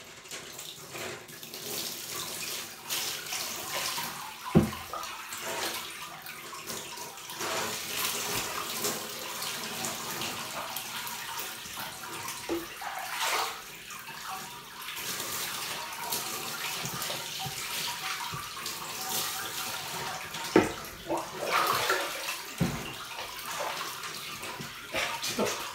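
Water poured from a plastic washbasin over a soapy cat, splashing and running off its fur as the shampoo is rinsed away. Sharp knocks stand out twice, about five seconds in and again near twenty seconds.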